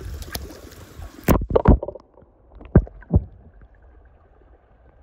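Shallow pool water splashing and sloshing as toys are pushed through it, with a few sharp splashes a second or so in and again about three seconds in, then faint lapping.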